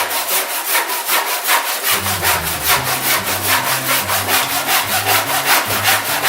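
Hand saw cutting through a small piece of wood in quick, even back-and-forth strokes, several a second.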